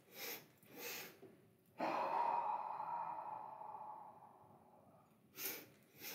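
A woman doing the Breath of Joy breathing exercise. She takes two quick sniffing inhales through the nose. About two seconds in comes a long, breathy "haa" exhale through the mouth, the loudest sound, which trails off over a couple of seconds. Two more quick sniffing inhales follow near the end.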